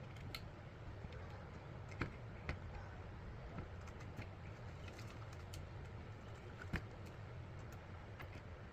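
A few faint clicks and taps from small items being handled on a workbench, over a low steady hum.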